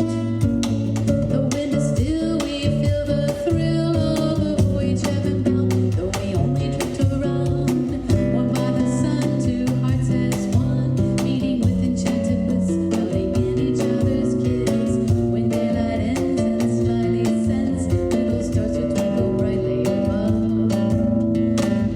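Live acoustic guitar music with hand percussion tapping steadily through it and a singing voice over the guitar.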